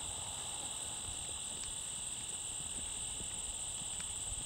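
Steady, high insect chorus in the surrounding field, with a few faint hoofbeats from a horse moving over grass.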